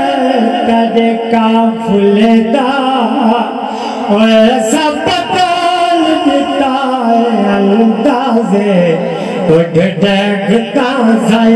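A zakir's sung recitation: one voice singing a slow, ornamented melody with long held notes that waver up and down.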